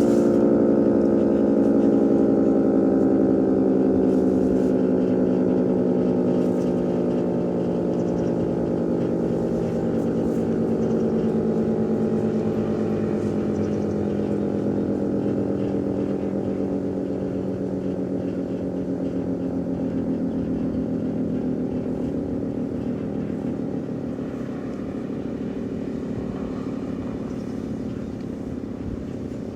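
Federal Signal 3T22A three-tone tornado siren winding down at the end of an attack-signal test: its chord of several tones glides slowly and steadily lower and fades as the rotor coasts down.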